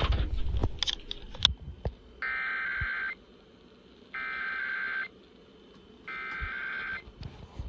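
A flurry of clicks and knocks, then the three shrill warbling data bursts of an Emergency Alert System SAME header, each just under a second long with about a second between them. These bursts announce an incoming EAS activation.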